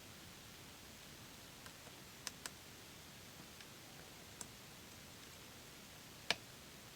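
Lock pick working the pins of a Robur safe deposit box lock: four faint, sharp clicks spread over several seconds, the loudest near the end.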